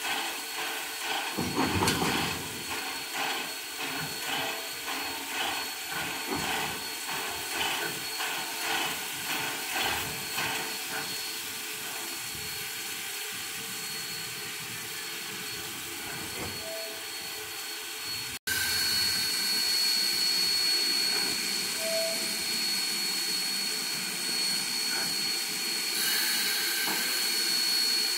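Steam locomotive #1702, a 2-8-0, moving slowly with soft, evenly spaced exhaust chuffs for about the first ten seconds, fading into a steady steam hiss. After a sudden break about two-thirds of the way through, a louder steady hiss with a thin high whine continues.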